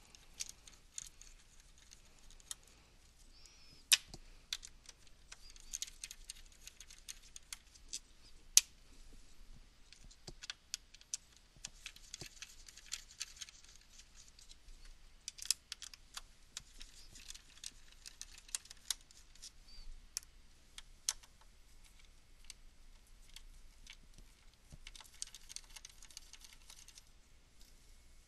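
A No. 1 Phillips screwdriver backing out the small screws that hold a DFC3 daughter card to a Cisco WS-X6704-10GE line card: scattered sharp metallic clicks and light scraping, with two louder ticks about 4 and 8.5 seconds in.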